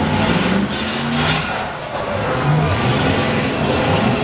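Demolition derby car engines revving up and down in uneven surges as the cars push against each other.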